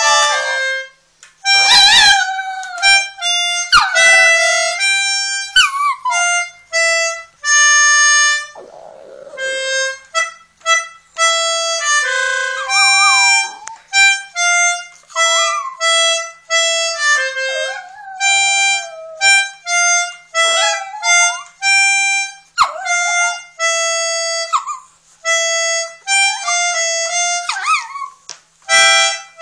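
A Shih Tzu howling along to a slow melody of steady held notes played on an instrument, its wavering howls sliding in pitch between and over the notes.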